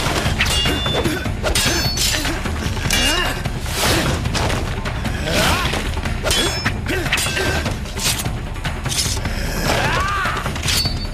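Sword-fight sound effects: repeated sharp metal blade clashes, several ringing briefly, along with hits, over dramatic background music.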